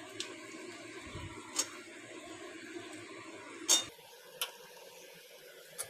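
Metal spatula stirring okra in a metal wok, giving a few short sharp clinks against the pan, the loudest about two-thirds of the way in, over a faint steady background noise.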